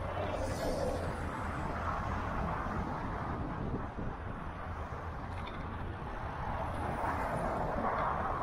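Steady city traffic noise from a busy multi-lane avenue, recorded on a bicycle-mounted action camera while riding, swelling twice as vehicles pass.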